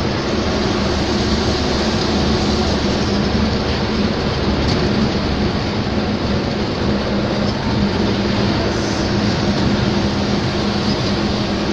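Steady engine drone and road noise from a vehicle cruising along a highway, with a constant low hum throughout.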